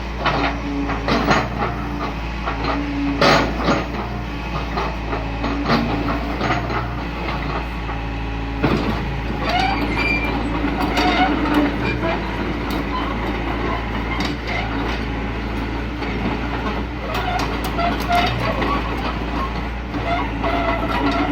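Excavator diesel engine running steadily, with irregular metal clanks and knocks and short squeaks over it.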